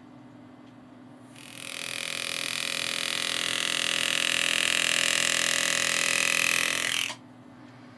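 Pneumatic engraving handpiece driving a graver into a steel rifle grip cap, cutting the inside work of a scroll. It makes a steady buzz that starts about a second in, builds briefly, and cuts off suddenly near the end.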